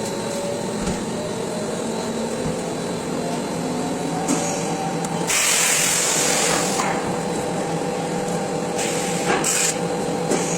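Plastic molding machine running with a steady hum, broken by loud hissing bursts, the longest lasting about a second and a half, a little past the middle, and shorter ones near the end.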